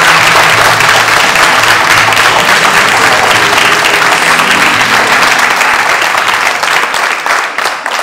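Audience and cast applauding: dense, loud hand-clapping that thins out and dies down near the end.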